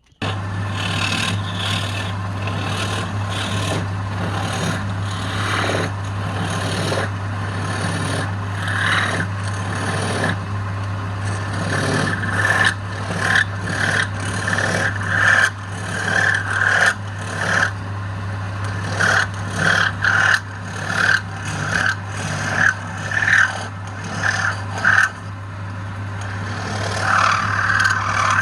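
Wood lathe running with a steady motor hum while a turning tool cuts the spinning wood with a scraping sound. From about twelve seconds in, the cutting comes as a quick series of louder strokes, roughly one or two a second.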